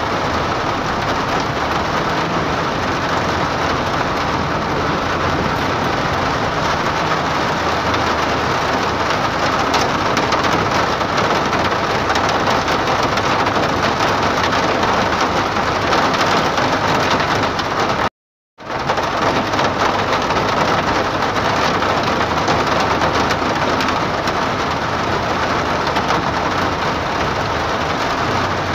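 Heavy rain hitting a car's windshield and roof, heard from inside the car as a steady, dense hiss. The sound cuts out completely for a split second about eighteen seconds in.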